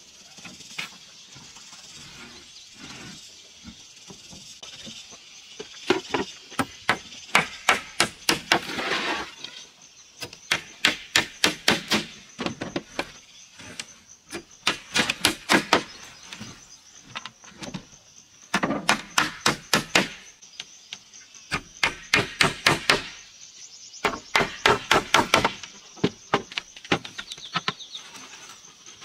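Hammer driving nails into wooden floor boards, in about six runs of quick blows, several a second, with short pauses between nails.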